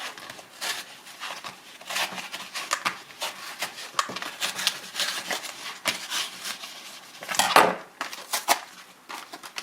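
Stiff plastic blister packaging being worked open by hand, a continuous run of crackling and clicking, loudest about seven and a half seconds in.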